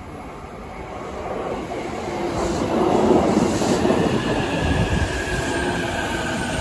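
Tokaido Line local electric train pulling into the station: the rumble of its wheels on the rails grows louder over the first three seconds as the cars draw alongside, then holds steady. A thin whine drifts slightly down in pitch in the second half as the train slows to stop.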